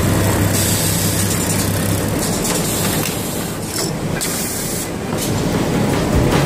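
CUANLIU A9 automatic pocket-setting sewing machine running: a steady mechanical noise with hissing bursts of compressed air from its pneumatic clamps, a few times.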